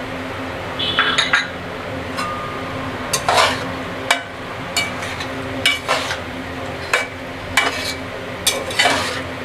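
Metal spatula stirring chopped tomatoes in a metal pot, scraping and clinking against the pot about once a second, over a steady low hum.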